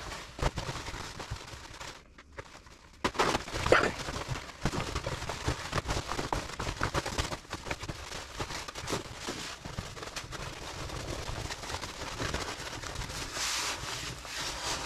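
Stiff two-ply waterproof rain-suit fabric (Frogg Toggs All-Sport) rustling and crinkling as it is folded and rolled up tightly by hand, with a brief lull about two seconds in.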